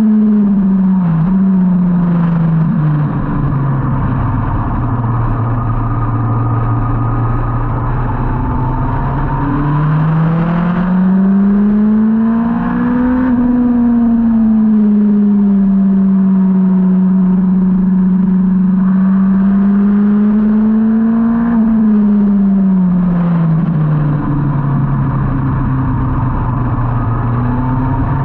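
Onboard sound of a 2003 Yamaha R1's inline-four engine at speed on track. The revs drop in the first few seconds and hold low, climb again around the middle and hold, then fall once more near the end as the bike slows, with a short rise at the very end.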